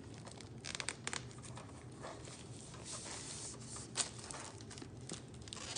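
Hard plastic blister packaging being broken and pulled apart by hand: a run of crackling clicks about a second in, some rustling, and a sharp snap about four seconds in.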